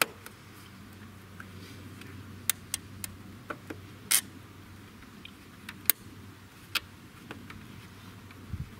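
Irregular sharp clicks and clinks of hand work on hose clamps and the aluminium pipe in the engine bay of a supercharged Jaguar XJR, about a dozen spread unevenly over a low steady hum.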